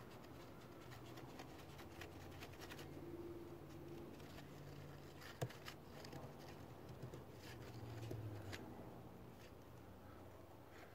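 Faint small plastic clicks and scrapes as the brake fluid reservoir cap is screwed down by hand, with one sharper click about halfway through.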